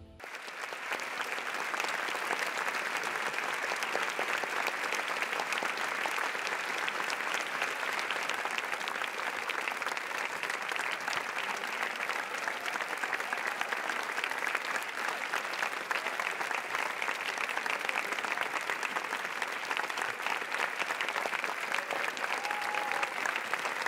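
Large theatre audience giving a standing ovation: dense, steady applause from many hands clapping at once.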